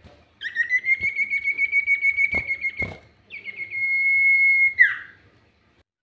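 Common iora (cipoh) singing two long high whistles. The first lasts about two and a half seconds with a fast flutter, and a few light clicks sound during it. The second is steadier and ends in a quick downward slur.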